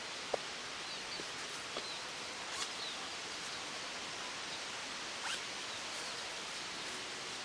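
Steady outdoor background hiss with a few light clicks and snaps scattered through it, and some faint high chirps.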